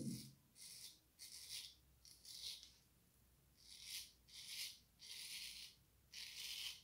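Antoine Touzet frameback straight razor from about 1900 scraping stubble through shaving lather in about nine short, faint strokes, during the first pass with the grain.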